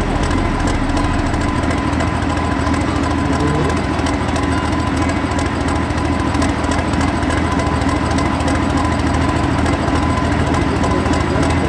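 Diesel tractor engine running steadily and loud, with an even drone and no rise or fall in revs.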